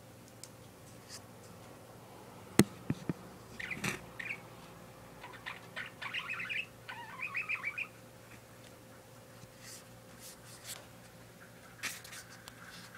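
Pet parakeet chirping in short bursts of quick, twittering chatter, busiest from about four to eight seconds in. A single sharp click about two and a half seconds in is the loudest sound.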